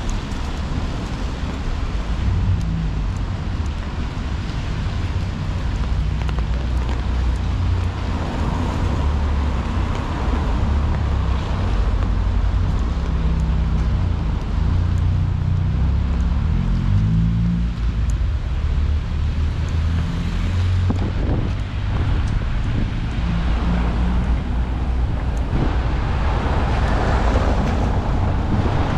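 Steady rain ambience on a wet city street: rain falling on an umbrella held overhead, over a low rumble of wind on the microphone and car traffic.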